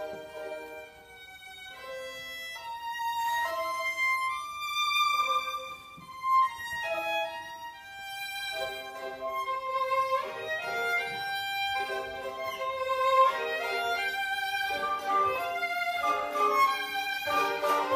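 Solo violin playing a melody over a plucked-string orchestra of mandolins and guitars. The music grows louder and fuller about halfway through.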